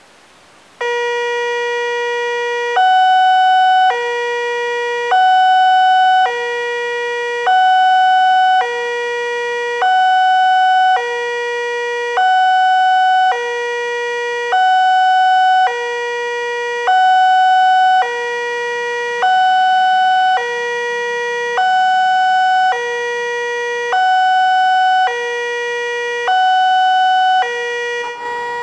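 Railway level-crossing warning alarm sounding its two-tone signal: a lower and a higher electronic tone alternate, each held about a second, starting about a second in, with the higher tone the louder. It warns that a train is approaching and the crossing barrier is closing.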